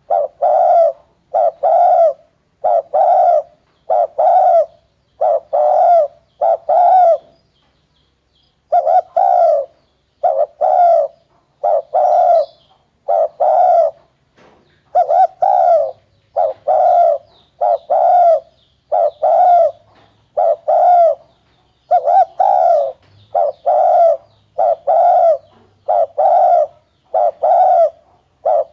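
Spotted dove cooing: low, loud coos repeated over and over, mostly in pairs, with brief pauses about eight and fourteen seconds in.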